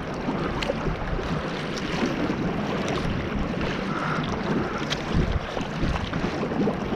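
Kayak paddle strokes and water splashing and lapping against the kayak's hull, with wind buffeting the microphone.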